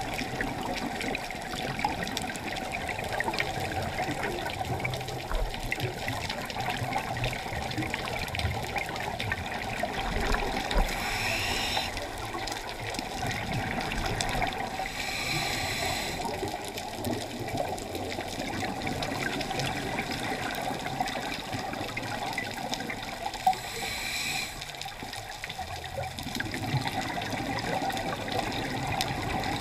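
Scuba regulator breathing and exhaled bubbles heard underwater through a camera housing: a steady bubbling rush, with three louder hissing surges of about a second each, two near the middle and one later.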